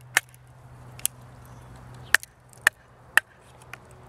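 Wooden baton striking the spine of a homemade Kephart-style bushcraft knife, driving the blade down through a knotty piece of split firewood. There are about five sharp knocks, roughly one every half second to a second, with a couple of lighter taps between them.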